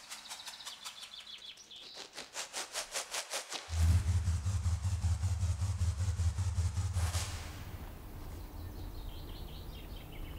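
Outdoor rural ambience. Rhythmic high chirping comes first, then about four seconds in a loud, steady, low engine hum starts suddenly and lasts about three seconds. After it the ambience is quieter, with faint bird chirps near the end.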